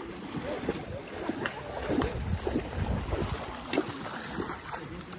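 Kayak paddles dipping and splashing in calm river water, with uneven water sloshing and faint voices in the background.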